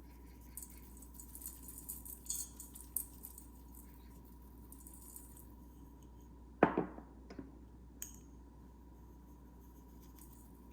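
Glass food containers and dishes clinking lightly as they are handled, then one set down with a sharp knock about two-thirds of the way in, followed by a couple of smaller knocks.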